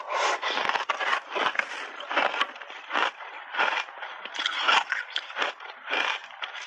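Close-miked crunching and chewing of ice coated in matcha and milk powder, with irregular crisp crunches about twice a second.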